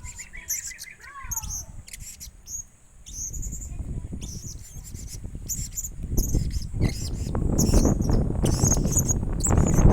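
Young blue-crowned hanging parrot (serindit) giving short, high-pitched chirps again and again. A low rumbling noise grows louder about halfway through.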